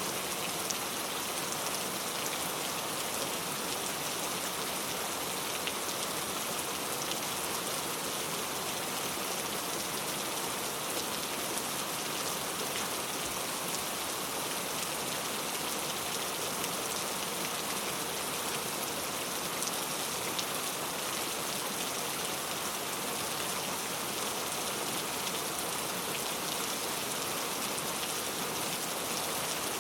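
Steady rain falling on a surface, an even hiss of many fine drops without thunder.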